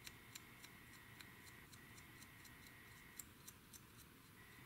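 Faint, irregular light ticks and scrapes of a small pointed tool chipping paint off a painted plastic model seat, about a dozen clicks in all. Under them runs a faint steady high whine that drops out briefly near the end.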